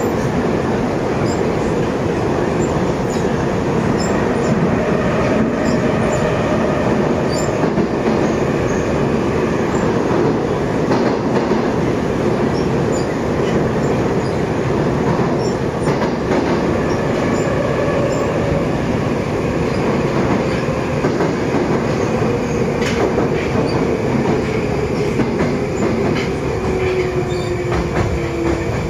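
Moscow Metro 81-775/776/777 'Moskva-2020' train heard from inside the car, running between stations with steady wheel and track noise. In the last few seconds a whine falls in pitch as the train brakes into the station. On this train the traction drive is made to sound like the older 'numbered' series trains.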